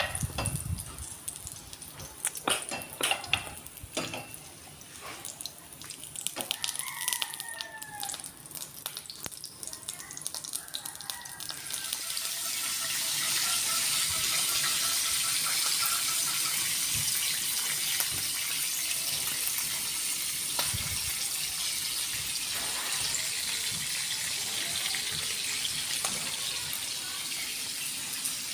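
Food frying in hot oil in a pan: a few clicks and knocks, then about twelve seconds in a loud, steady sizzle starts and keeps going.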